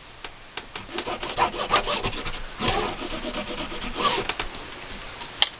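A white colored pencil drawn along a clear acrylic ruler across fabric on a cutting mat, in several strokes lasting from a fraction of a second to about a second, with a sharp click near the end.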